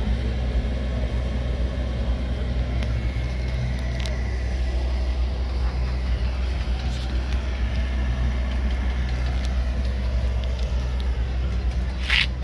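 Steady low rumble of an engine running nearby, with a few sharp clicks near the end.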